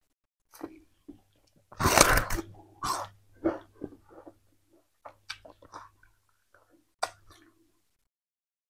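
A person chewing fibrous raw sugarcane in irregular crunching, wet bursts, the loudest about two seconds in.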